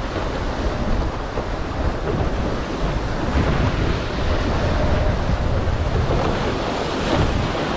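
Wind buffeting the microphone over the rush of water along the hulls of a Nacra F18 catamaran sailing fast, at about 30 km/h. A steady, unbroken noise, heaviest in the low rumble.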